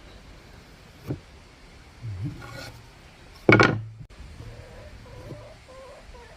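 Wooden speargun being handled: a short click about a second in, a brief wooden rubbing scrape, then one loud sharp snap about three and a half seconds in that dies away over about half a second.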